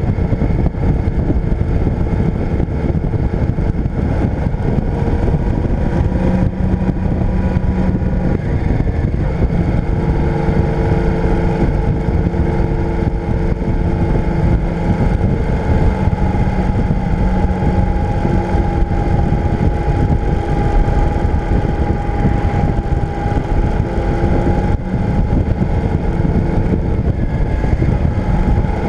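Motorcycle engine running at a steady cruise on the road, its note holding fairly even with small shifts in pitch, under a constant low rumble of wind and road noise on the onboard microphone.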